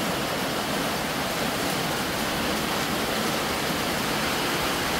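Steady rain falling on a corrugated sheet-metal roof overhead, an even, unbroken hiss.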